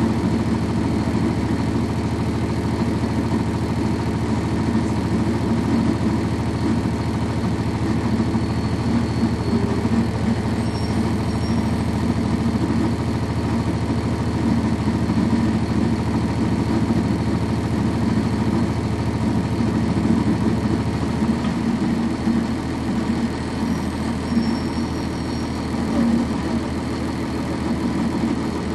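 Cummins ISC inline-six diesel engine of a 1999 NovaBus RTS transit bus running at a steady drone, heard from inside the bus. The low part of the engine note shifts slightly about three quarters of the way through.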